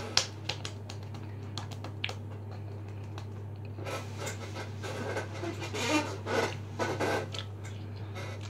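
A sharp hand clap just after the start, followed by a few small clicks, then several seconds of close-up breathing and mouth noises while eating cereal. A low steady hum runs underneath.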